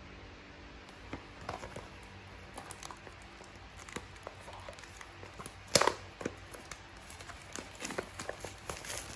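Clear plastic shrink-wrap being torn and peeled off a small cardboard box: scattered crinkles and small clicks of handling, with one sharp louder rip a little past the middle.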